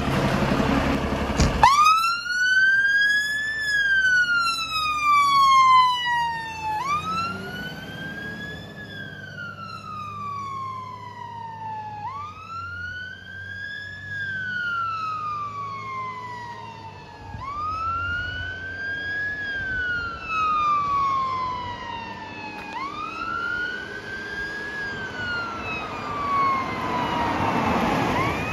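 Fire engine (water tender) idling, then its wail siren comes on a second and a half in. The siren sweeps up quickly and falls slowly, repeating about every five seconds and growing a little fainter as the appliance drives away. A rush of noise swells near the end.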